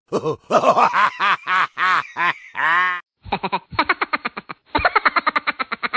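Comic novelty audio track: bouncing, squeaky pitched sounds for about three seconds. After a short break, a fast run of chattering, laugh-like pulses follows, quickening near the end.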